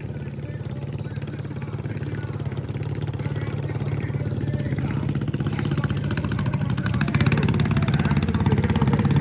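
Small engine of a junior dragster idling with an even pulse, growing steadily louder.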